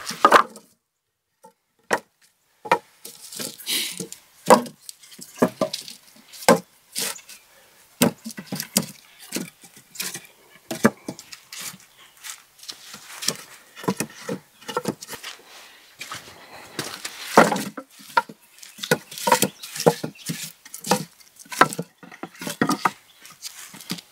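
Logs being worked for a raised log bed: irregular wooden knocks and clatter, some sharp and loud, with short pauses between.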